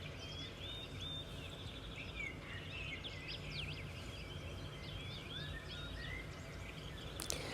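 Faint birdsong: many short chirps and whistles, some rising and some falling, over a low steady hum.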